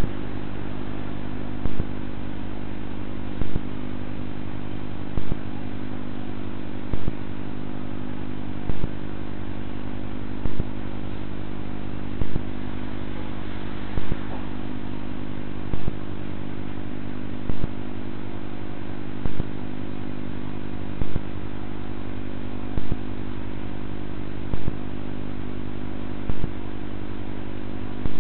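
Steady hum with several fixed low tones, broken by a sharp click at even intervals about every second and three quarters.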